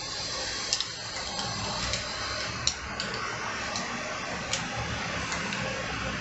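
Light, scattered clicks and ticks of a crossbow and its bolt being handled as the bolt is set onto the rail, over a steady background hiss.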